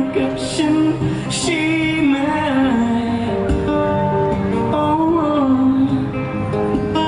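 Male singer singing a song in Thai live into a microphone, accompanying himself by strumming an acoustic guitar.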